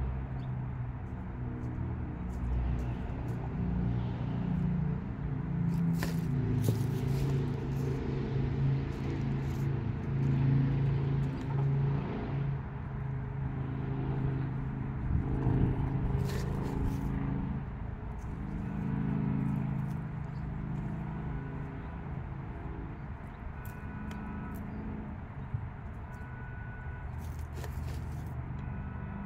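Chickens making low, drawn-out murmuring calls that rise and fall in pitch, with scattered light clicks and taps.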